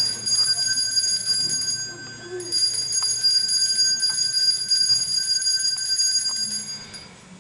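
A small, high-pitched altar bell rings continuously as the consecrated chalice is elevated at Mass. The ringing breaks off briefly about two seconds in, resumes, and stops near the end.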